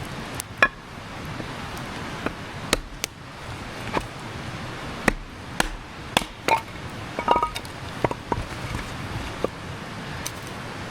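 Newly lit wood campfire crackling, with irregular sharp pops and snaps over a steady background rush.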